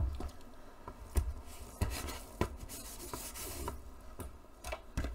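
Soft rubbing with a few scattered light knocks and taps as paint is worked through a stencil: a foam roller put down on the work table and a rag dabbed over the stencil.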